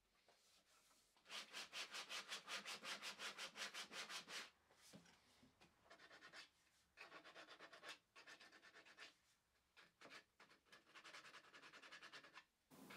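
Hand-sanding black walnut with sandpaper: quick, even back-and-forth strokes, about five a second, for about three seconds. Then fainter, scattered rubbing strokes near the end.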